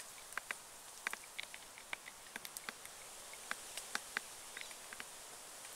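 Faint scattered crackles and ticks of eucalyptus leaves and twigs brushing, a few each second, with no steady sound under them.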